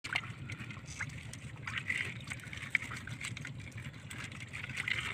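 Hands freeing fish from a tangled fishing net in the bottom of a wooden boat: faint, scattered rustles and small clicks over a low steady rumble.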